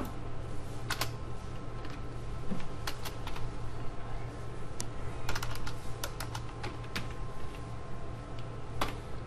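Computer keyboard keystrokes, scattered single taps and a few quick runs of keys, over a steady background hum.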